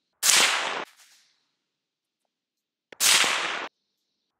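Two shots from a Radical Firearms integrally suppressed 5.56/.223 AR-15, about two and a half seconds apart. Each is a sharp crack that trails off in a short echo. One reads about 118 dB peak on a sound meter a metre to the side of the muzzle.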